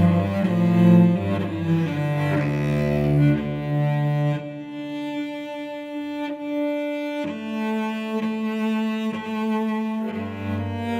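Solo cello played with the bow: lower notes for the first few seconds, then long held notes higher up, falling back to a low note near the end.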